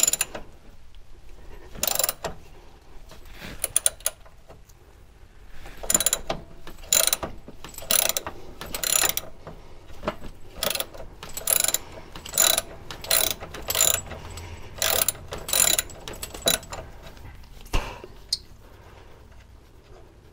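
Socket ratchet clicking in short repeated strokes, about one a second, as it unscrews an old brake line fitting from the proportioning valve; the nut has just broken loose and now turns freely. A dull knock near the end.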